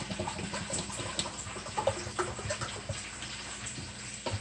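Vinegar poured from a plastic bottle into a ceramic mug: irregular gurgling and splashing of liquid filling the cup.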